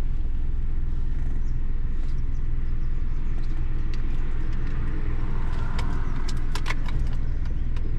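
Steady road and engine rumble of a Tata Nexon heard inside its cabin at highway speed, with wind coming through the open driver's window. A few sharp clicks come near the end.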